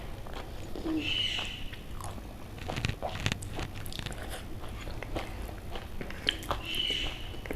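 Close-miked eating sounds: chewing, with scattered sharp clicks and crunches. A brief high-pitched tone comes about a second in and again near the end.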